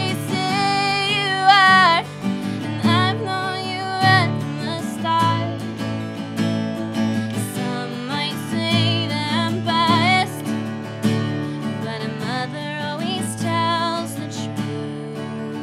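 A woman singing while strumming an acoustic guitar, her voice held in long, wavering notes over the steady strumming.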